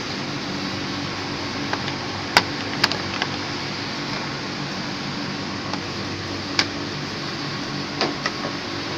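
Steady machine hum with about eight short, sharp clicks and knocks scattered over it. The loudest click comes about two and a half seconds in.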